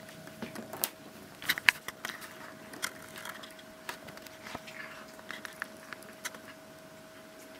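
Two cats snapping up and crunching treats on a parquet floor: irregular small clicks and taps, a cluster of louder ones about a second and a half in, over a faint steady hum.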